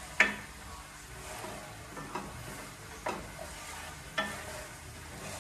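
Wooden spoon stirring and scraping meat in barbecue sauce in a stainless steel frying pan, the pan softly sizzling on a gas burner, with four sharp knocks of the spoon against the pan.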